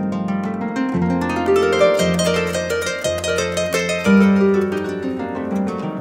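Instrumental background music: a quick run of plucked-string notes over a bass line that changes about once a second.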